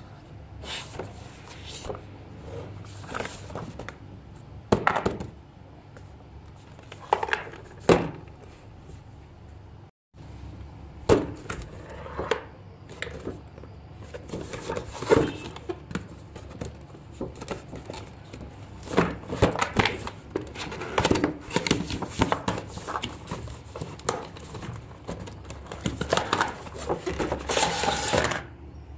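Cardboard toy box being handled: irregular knocks, taps and scraping rustles of card as it is turned over and its lid opened, loudest near the end.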